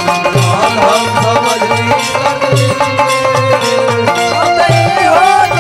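Instrumental interlude of live Bhojpuri folk music: a hand drum keeps a steady rhythm of deep strokes under a melody line that slides between notes.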